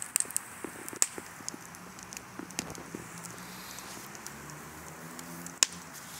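Wood fire in a fire pit crackling and popping under meat on a grill grate: irregular sharp pops over a steady hiss, with the loudest pops about a second in and near the end.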